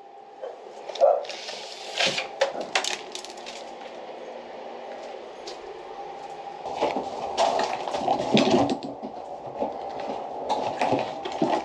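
Scattered knocks, clatters and scrapes of demolition on a tiled, prefabricated stainless steel shower niche: a few separate hits in the first three seconds, then a busier run of knocks from about seven to nine seconds and a few more near the end.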